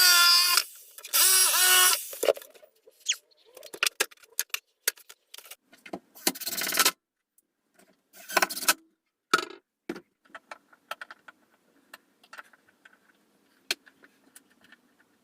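Power drill fitted with a hole saw, run in two short bursts in the first two seconds, its motor pitch rising as it spins up. After that come scattered clicks, knocks and scraping from handling the drill and workpiece, with a noisy burst lasting about a second, roughly six seconds in.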